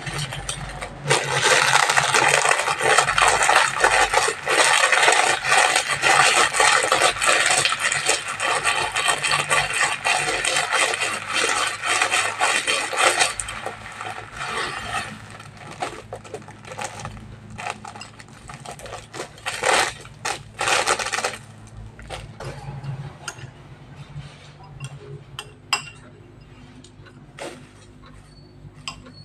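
Plastic seasoning sachets and the instant-noodle packet crinkling and tearing, loud and dense for about twelve seconds. Then comes lighter intermittent rustling as the sachets are squeezed out, and near the end a metal spoon clinks and scrapes in a ceramic bowl. A low steady hum runs underneath.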